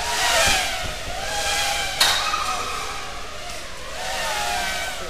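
FPV racing quadcopters' electric motors whining as they fly past, swelling and gliding up and down in pitch over several passes, with a sharp knock about two seconds in.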